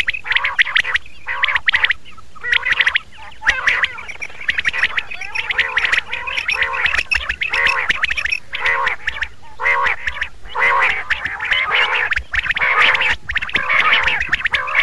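Quails calling: a dense run of short, repeated calls that overlap and barely pause, with a brief lull about three seconds in.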